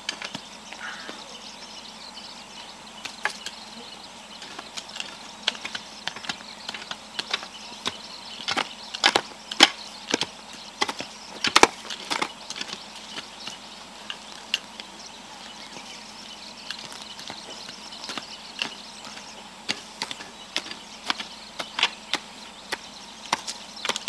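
Several hand hoes chopping and scraping into soil while weeding: irregular short strikes, with the loudest group about nine to twelve seconds in.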